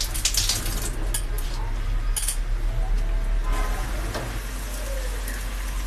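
A metal spoon clinking and scraping, loudest in the first two seconds, as sweet kheer filling is laid and spread on a rice-flour crepe in a flat tawa pan. Under it is a light frying sizzle from the batter and a steady low hum.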